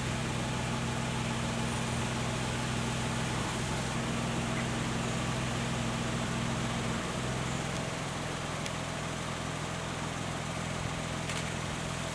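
Steady low hum of an idling engine over a background hiss, the hum shifting slightly in pitch about seven seconds in.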